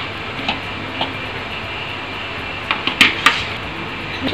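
A few light clinks and knocks of a spatula and a small bowl as eggs are scraped into a mixing bowl, the loudest cluster about three seconds in, over a steady background hiss.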